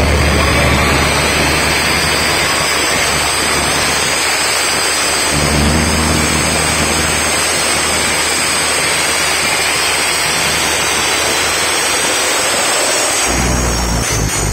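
Loud playback through a DJ sound system of a noise effect: a dense, rain-like hiss over the whole range, with deep bass tones swelling in at the start, about five seconds in, and again near the end.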